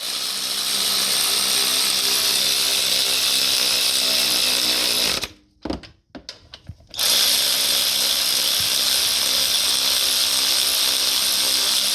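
Power tool running in the alternator mounting bolts: two steady runs of about five seconds each, with a few short blips between them about six seconds in.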